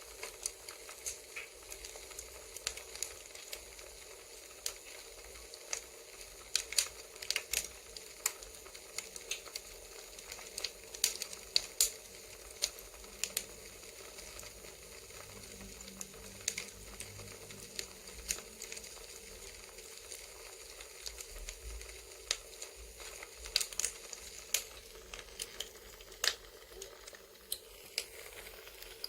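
Crackling campfire: irregular sharp pops and snaps from burning wood over a steady low hiss.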